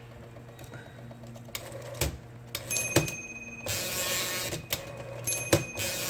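IBM Selectric II electric typewriter running: the motor hums steadily and sharp mechanism clicks come at intervals. Two whirring runs, about four and six seconds in, are carrier returns, working again now that the return clutch's half-moon spring has been refitted.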